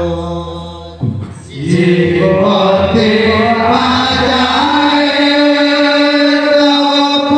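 Sankirtan group of male voices chanting in unison on long held notes. The chant breaks off about a second in, then swells back in with a rising phrase and settles onto a new held note.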